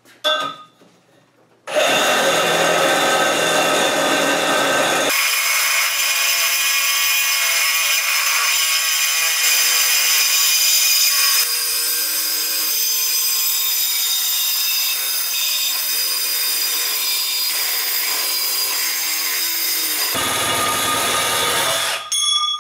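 Cordless Milwaukee M18 Fuel Sawzall with a Diablo carbide-tipped reciprocating blade sawing through a 4-inch steel pipe, the pipe ringing in high tones as the blade cuts. The saw starts about two seconds in, runs steadily, and stops shortly before the end.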